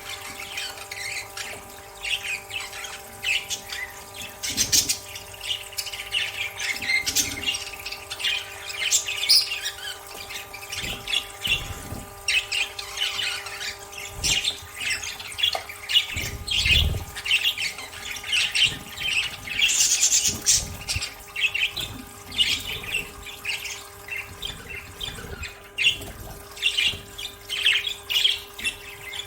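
Budgerigars chattering, a dense run of quick chirps and squawks. A steady faint hum runs underneath.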